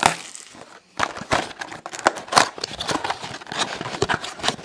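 Cardboard trading-card mini-boxes and packaging handled by hand: a busy run of irregular rustles, scrapes and clicks, with a short pause just before a second in.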